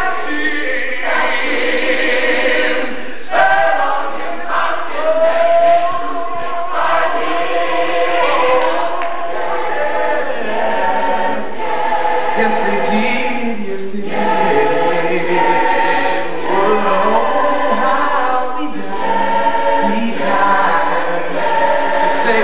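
Gospel choir singing a cappella, many voices together in held, shifting chords.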